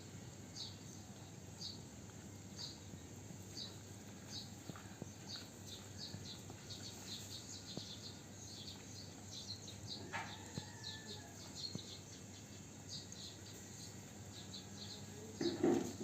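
A string of short, high chirps, about one a second at first and then coming faster, like a small bird calling. Near the end there is a louder, lower sound.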